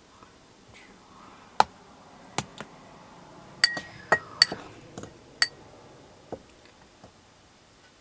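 A metal fork clinking and tapping against cookware while tofu pieces are floured. About a dozen sharp clicks are bunched in the middle, a few with a bright ringing tone.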